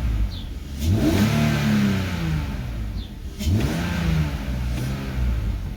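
BMW 330i's M54 3.0-litre inline-six blipped twice, each rev rising and falling straight back to a steady idle with no hunting. It runs smoothly with no misfire, its vacuum leak fixed.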